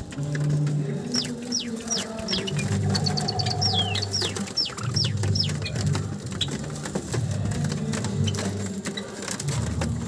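Java sparrows chirping: a run of quick, high, downward-sliding chirps and a few short repeated high notes in the first half. Sharp clicks throughout come from the birds pecking seed at a wooden trough, over a low droning hum.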